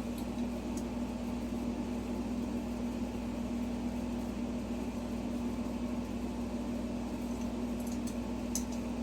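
A steady mechanical hum at one constant pitch, like a running fan or appliance, with a few faint light clicks about a second in and again near the end.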